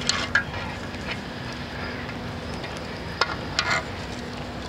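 Light rustling and a few short crackles from the cactus's soil-covered roots being handled, over a steady background hum.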